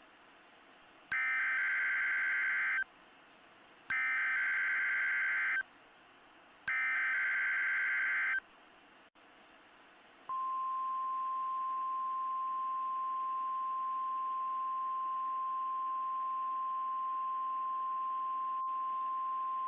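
Three bursts of NOAA Weather Radio SAME header data, each a harsh digital warble of about 1.7 seconds, followed by the weather radio's single-tone warning alarm, one steady tone that starts about ten seconds in. Together these are the signal that automatically activates weather alert receivers. A faint hiss lies underneath.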